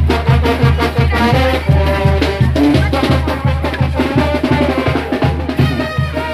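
Live brass band playing: sousaphone and brass over a steady, regular bass-drum beat.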